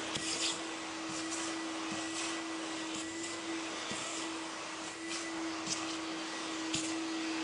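Vacuum cleaner running steadily with a constant motor hum, with a few irregular short clicks and rattles over it.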